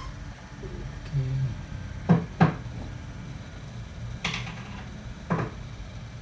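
Sharp knocks and clicks of hard parts being handled, four in all: two close together about two seconds in, then one just past four seconds and one past five.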